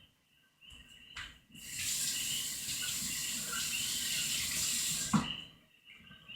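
Water running from a tap as a steady rush for about three and a half seconds, then cut off, with a sharp knock as it stops.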